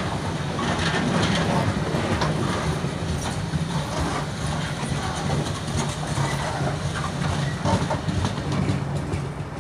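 A freight train of Castle Cement bulk cement tank wagons rolling past, wheels clicking and rattling over the track with a steady low rumble. It eases off slightly near the end as the last wagons go by.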